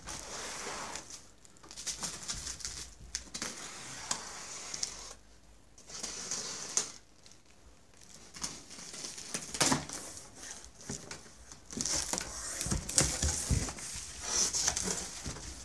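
Plastic stretch wrap crinkling and tearing as it is slit with a utility knife and pulled off a cardboard box, in irregular bursts with short pauses. Near the end the cardboard flaps are opened, with louder rustling and rubbing.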